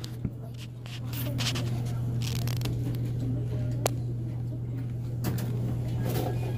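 Handling noise from a phone microphone rubbing against a fleece sweatshirt: scattered rustling and scraping, with a sharp click about four seconds in, over a steady low hum.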